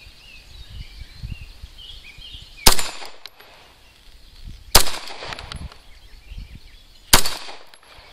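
Three shots from a SIG Sauer M11A1 9mm pistol firing 115-grain remanufactured ammunition, a little over two seconds apart, each followed by a short echo. Birds chirp faintly in between.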